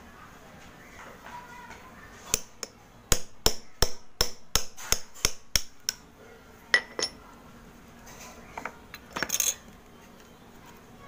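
A knife blade striking and cutting into a dry block of multani mitti (Fuller's earth clay), making a series of sharp, crisp cracks about three a second for several seconds, then two more. Near the end comes a short cluster of cracks as the clay is worked again.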